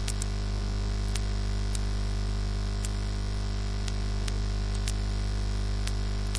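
Steady electrical mains hum with hiss from the recording microphone, with about ten faint, sharp clicks scattered irregularly through it.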